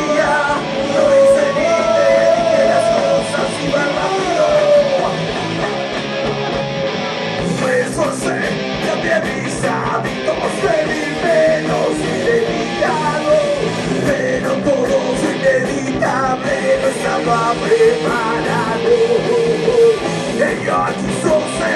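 Live rock band playing a song: electric guitars and drums, with a singer's voice over them.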